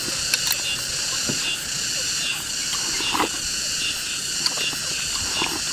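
Steady outdoor insect chorus, a dense continuous shrill drone, with a few brief sounds of people eating at the table: gnawing on chicken feet and slurping from a bowl.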